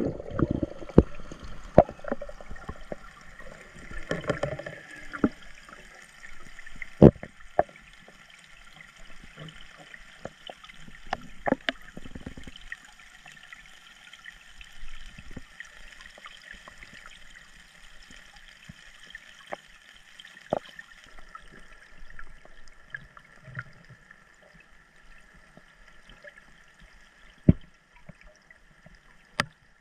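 Lake water gurgling and trickling, with scattered sharp clicks and knocks and a faint steady high hum underneath.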